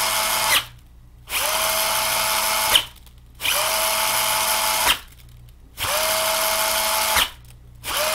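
Hurricane Spin Scrubber's battery-powered motor whirring as the brush head spins. It cuts out and starts again about every two seconds, and each start rises quickly in pitch as the motor spins up. The owner says the motor is lacking in torque.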